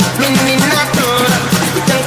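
Electronic dance music with a steady fast beat and a melodic line: a tribal house DJ mix.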